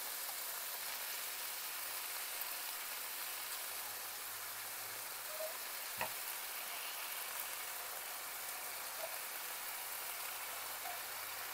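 Chicken and kielbasa frying in a skillet with a steady, soft sizzle. A single faint click comes about six seconds in.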